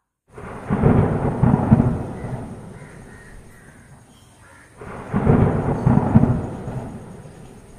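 Two rolls of thunder, each starting as a loud, deep rumble and dying away over a few seconds, the second coming about four and a half seconds after the first.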